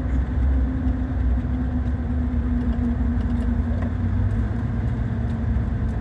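Car engine and road noise heard from inside the cabin while driving, a steady low drone whose engine note eases slightly lower about halfway through.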